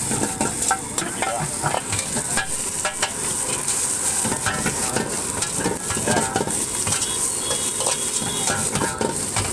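Egg noodles sizzling in a steel wok, a metal ladle scraping and clinking against the pan again and again as they are stir-fried.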